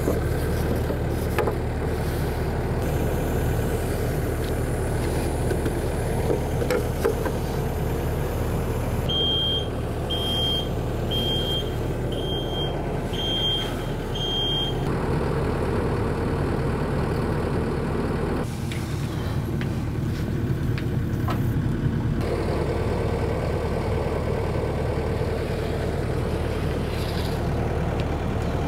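A heavy vehicle engine idling steadily. About nine seconds in, a backup alarm beeps six times, about once a second.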